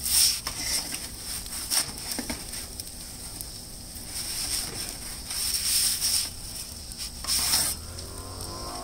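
Perforated metal pizza peel scraping and sliding on the stone floor and metal mouth of a gas-fired Solo Stove Pi Prime pizza oven in several short scrapes, as the pizza is pulled forward, turned and slid back in. Under it the oven's burner keeps up a steady hiss and low rumble.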